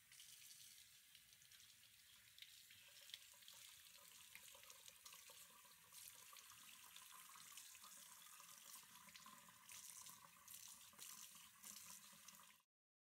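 Tap water running into a sink while hands are rinsed under the stream: a faint, steady splashing that stops suddenly near the end.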